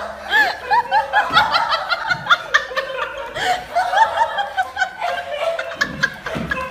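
Several people laughing and snickering, with short repeated rising-and-falling laughs overlapping one another.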